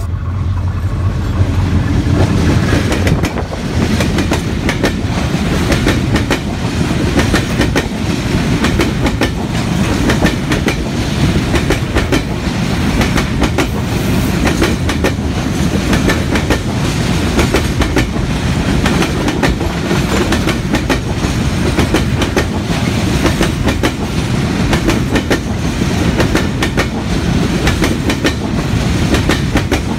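Freight train led by a Korean-built diesel locomotive running past. There is a low engine hum in the first few seconds, then a steady rumble and fast clickety-clack of the wagons' wheels over the rail joints.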